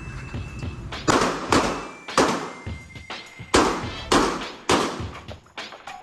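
Seven pistol shots from a Beretta 92FS 9mm handgun at uneven spacing, the first about a second in, each followed by a short echo in an indoor range.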